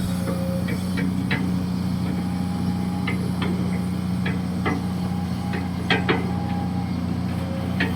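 Kobelco SK200-6 Super hydraulic excavator's diesel engine running steadily, with irregular sharp metallic clanks and knocks, the loudest two close together about six seconds in.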